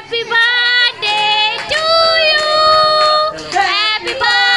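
Children and women singing a birthday song together at the cake cutting, with long held notes.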